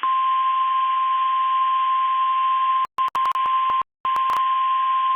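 NOAA Weather Radio warning alarm tone, the single steady 1050 Hz tone that comes before a watch or warning is read, heard over radio hiss. About three seconds in, the reception breaks up into clicks and a short dropout, then the tone carries on.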